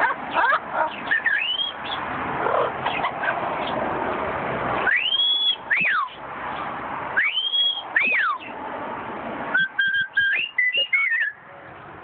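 Amazon parrot whistling: two clear whistled phrases, each rising in an arc and then sweeping down, followed near the end by a quick run of short chirpy whistled notes. Before the whistles it makes busier, raspier chatter.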